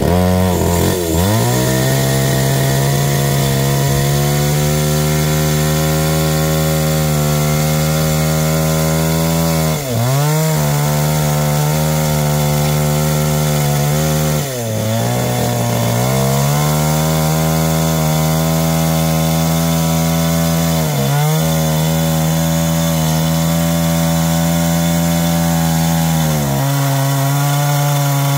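Petrol chainsaw running at high revs, cutting through a timber plank. Its pitch dips briefly four times and rises near the end.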